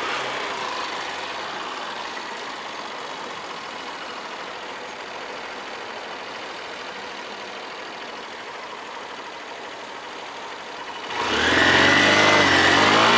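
Motorcycle on the move, heard from the rider's camera: an even rush of wind and engine noise. About eleven seconds in it turns louder, with a pitched, shifting engine note.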